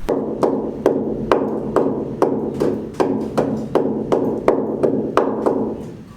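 A steady series of sharp knocks, about two to three a second and getting slightly faster, like hammer blows.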